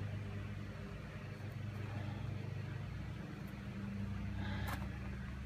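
Steady low mechanical hum, like a motor or engine running, with a sharp click near the end.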